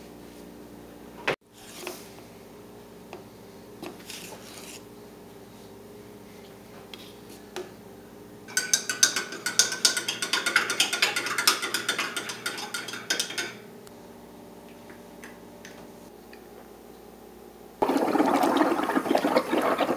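A spoon stirring and clinking against the inside of a mug of milk for about five seconds, in the middle. Near the end a loud gurgling starts suddenly as milk is drawn through a straw.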